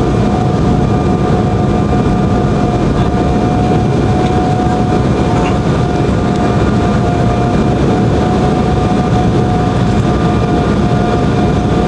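Cabin noise inside an Embraer 190 airliner on approach to landing: the steady roar of its General Electric CF34 turbofan engines and the air rushing past, with a steady whine running through it.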